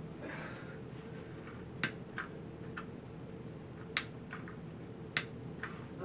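Sharp clicks, mostly in pairs a fraction of a second apart, from a handheld butane torch's igniter being pressed and released while it is being relit. The torch keeps going out.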